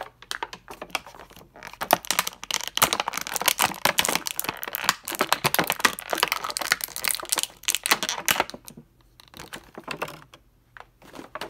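Clear plastic bag crinkling and crackling as it is handled to free an action figure: a dense run of crackles for about seven seconds, then a few scattered crinkles near the end.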